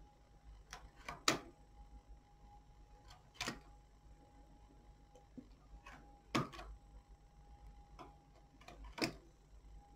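Irregular sharp metal clicks on a knitting machine's needle bed, about seven of them, the loudest about a second in, as stitches are hooked back onto the needles by hand. A faint steady high hum runs underneath.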